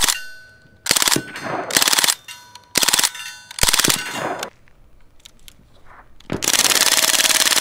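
Crosman A4P CO2-powered BB gun firing full auto: a single shot, four short rapid bursts, a pause, then one long burst of about a second and a half near the end. Steel targets ring with a steady ping after the bursts as the BBs hit them.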